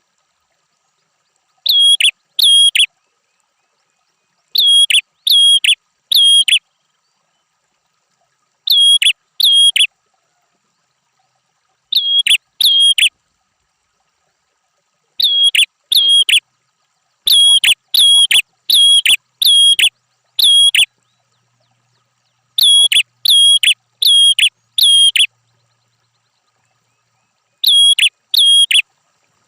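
A red-headed prenjak singing loud, sharp whistled notes in short volleys of two to six, with silent pauses of one to three seconds between volleys.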